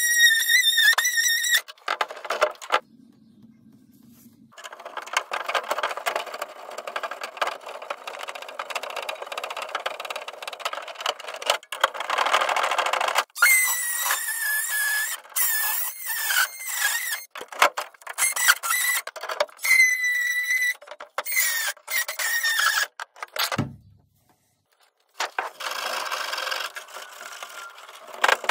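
Tools at work on an old shower valve. A high metallic squeal sounds for the first second or two, then a long stretch of harsh cutting and grinding. After that come on-and-off cuts with squealing tones from an oscillating multi-tool, with short pauses between.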